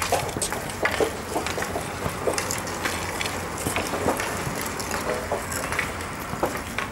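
Hockey sticks tapping and dribbling small balls on an asphalt court: irregular sharp clicks and knocks from several players at once.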